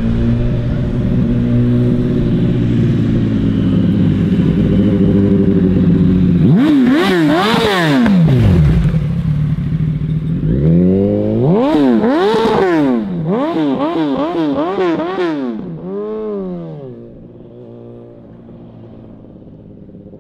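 2006 Yamaha R1's inline-four engine through a Toce aftermarket exhaust, running steadily at first, then revved up and down in a string of quick blips as the bike rides past. The sound fades as it rides away near the end.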